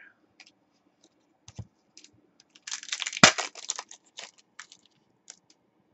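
Foil trading-card pack crinkling and tearing open, a dense burst of crackling about halfway through with one sharp snap. Light clicks of cards being handled come before and after it.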